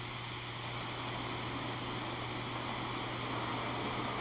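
Steady electrical hiss with a low hum underneath, unbroken and with no ringing tone, while a phone call connects.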